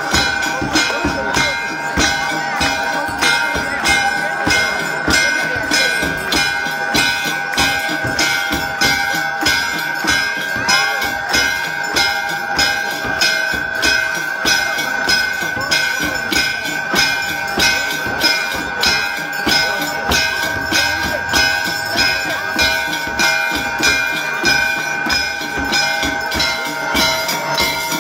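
Temple bells ringing without a break for the aarti, their steady ringing tones carried over an even, unbroken beat of sharp strokes, roughly one and a half a second.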